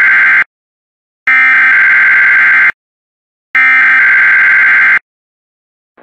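Emergency Alert System SAME header: three loud bursts of harsh digital data screech, each about a second and a half long with short silent gaps, the first already under way. These bursts open a relayed emergency alert.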